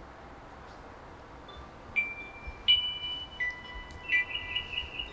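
Smartphone alarm going off: a chiming melody of held high notes that starts about two seconds in, with quicker repeated notes near the end.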